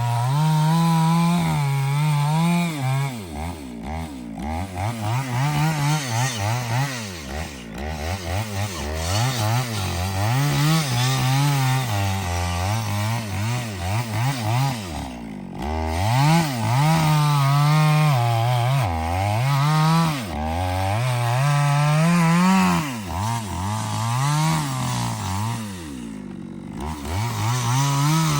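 Chainsaw cutting through a hardwood trunk, its engine pitch repeatedly sagging under load and climbing back as the chain bites and frees.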